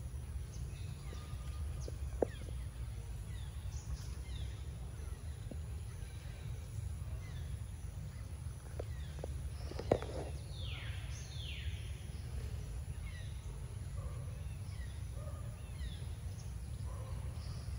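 Repeated short, downward-sweeping bird calls scattered throughout, over a steady low rumble, with two sharp clicks, one about two seconds in and one near the middle.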